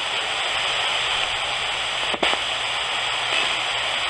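Steady static hiss from a RadioShack 20-125 radio sweeping through FM stations as a ghost box, with a brief break about two seconds in.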